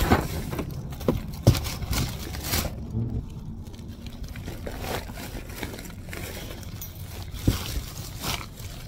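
Plastic grocery bags rustling and knocking as bags of groceries are set down in a car, with a string of separate thuds, the sharpest about a second and a half in.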